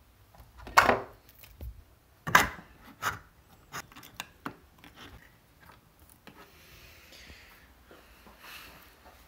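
Pantry items taken off a shelf and set down, with two loud clunks and a few lighter knocks in the first half, then a metal spoon scraping food out of a tin can.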